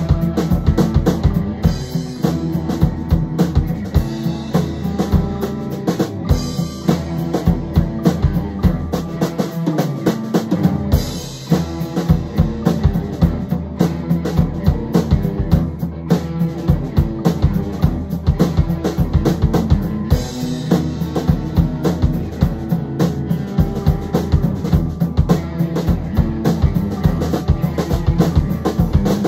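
A full rock band playing live in a rehearsal room: a drum kit keeps a steady beat under two electric guitars.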